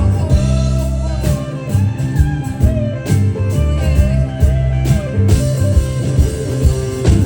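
Live band playing an instrumental break, a guitar-led melody line bending and wavering over the full band.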